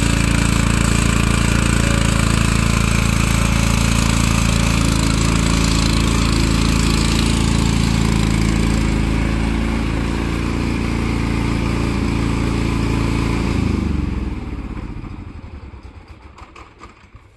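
Lawn tractor engine running steadily, easing off a little about nine seconds in. About fourteen seconds in it is shut off and coasts to a stop with slowing chugs.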